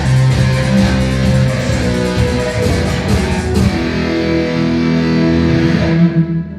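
A rock band playing, led by guitars. Short sharp hits run through the first half, and about three and a half seconds in the band settles onto held notes that ring out until the sound cuts off at the end.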